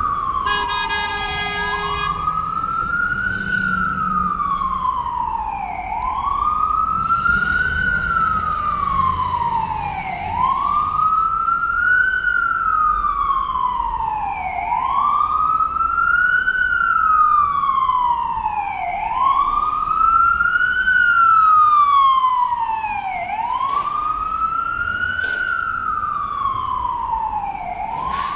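Emergency vehicle siren in a slow wail, rising and falling about once every four seconds. A horn sounds for about a second and a half near the start, over traffic noise.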